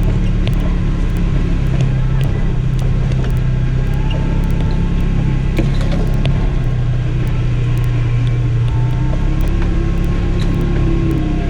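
2011 Polaris RZR XP 900 side-by-side's parallel-twin engine running steadily at a constant pitch, with faint ticks and rattles over it.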